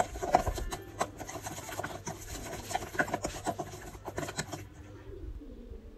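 Metal spoon scraping and clinking against a stainless steel bowl in quick irregular strokes, stirring a thick paste of ground spices, lemon juice and oil. The stirring stops near the end, leaving only a faint low hum.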